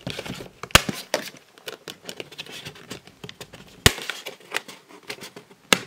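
Discs being popped off the press-hub clips of a steelbook's clear plastic disc tray. Three sharp plastic clicks, the first about a second in, the next near four seconds and the last just before the end, with quieter ticks and handling rustle between them.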